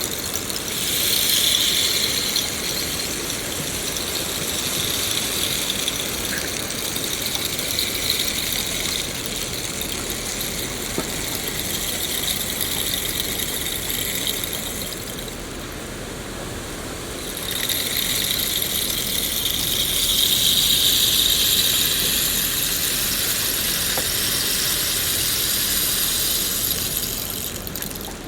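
Steady rain falling in a forest, with a high-pitched droning hum over it that swells about a second in, drops away a little past halfway, and swells again before fading near the end.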